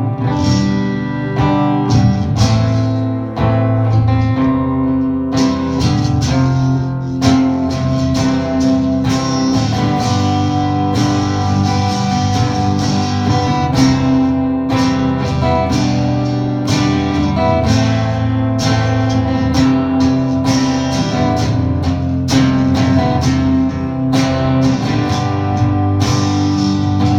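Acoustic guitar strumming chords over steady low notes, the instrumental opening of a song played live before the vocals come in.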